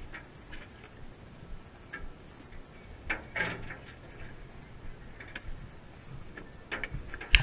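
Scattered light clicks and taps from hands handling fishing tackle while baiting a hook with clam, close to the microphone, with a sharp knock near the end.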